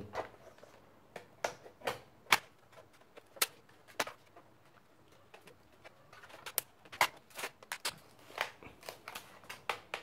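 Irregular sharp plastic clicks and knocks, about a dozen, from handling an HP 15 laptop's case while its battery latches are released and the removable battery is pulled out of its bay.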